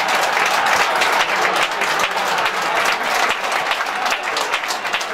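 Football crowd applauding a goal: a dense, steady mass of many hand claps.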